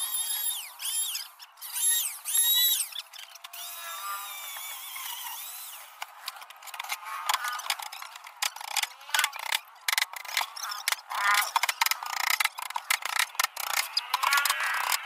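A springy cartoon 'boing' sound effect repeats several times for the first three seconds or so. About six seconds in, a fast, irregular run of clicks and knocks begins, from hand work on a plywood cabinet top.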